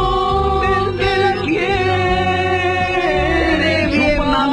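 Music with a sung vocal line holding long notes over a steady bass.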